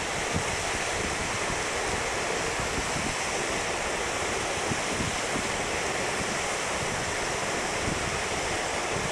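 Steady rush of flowing floodwater, with wind buffeting the microphone in low gusts.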